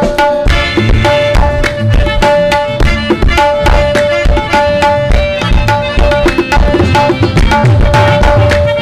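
Qawwali ensemble playing an instrumental passage: tabla with quick strokes and deep bass thumps, rhythmic hand clapping, and harmonium holding steady notes over the beat.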